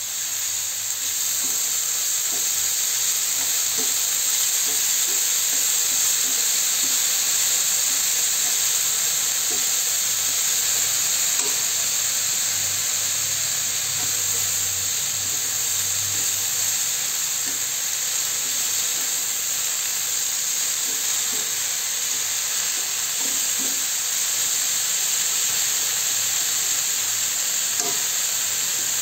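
Beef and celery stir-frying in a nonstick pan: a steady sizzle, with small scattered taps and scrapes as a plastic spatula stirs the food.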